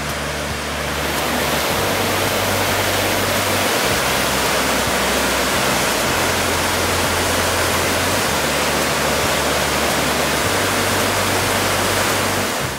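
Loud, steady roar of rushing water from a waterfall or rapids, with low sustained music notes underneath; the water sound cuts off abruptly just before the end.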